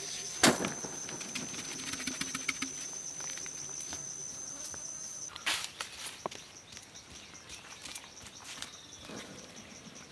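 Insects calling in the forest: a high, steady whine that turns into a fast pulsing chirp about five seconds in. Over it come a sharp knock about half a second in and scattered clicks and rustles from someone walking and handling dry soil.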